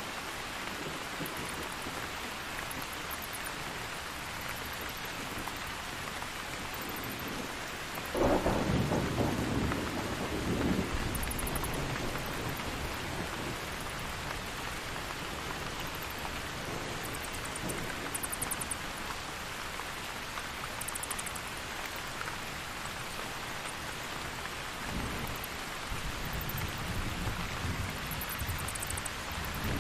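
Steady rain falling throughout a thunderstorm. A sudden thunderclap comes about eight seconds in and rolls on for a few seconds, and a fainter low rumble of thunder follows near the end.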